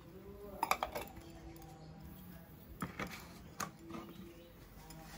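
A few light clicks and knocks as a plastic paint bottle and a spray gun's paint cup are handled, just after primer has been poured into the cup.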